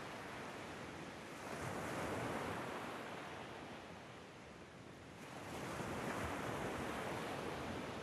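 Ocean waves washing in on a shore, a steady hiss that swells twice, once about two seconds in and again from about five and a half seconds.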